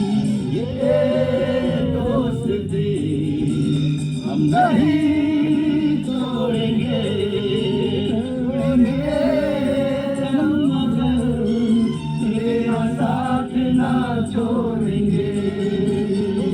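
Music with voices singing: several voices at once, continuous through the stretch.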